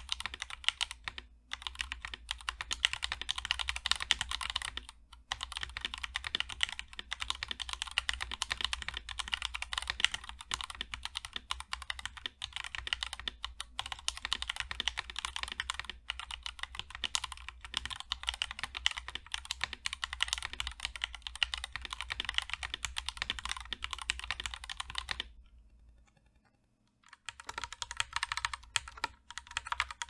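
Fast typing on a mechanical keyboard fitted with Momoka Frog V3 factory-lubed linear switches: a dense, continuous run of keystrokes. About four seconds before the end there is a brief silence, and then keypresses resume on Momoka Flamingo linear switches.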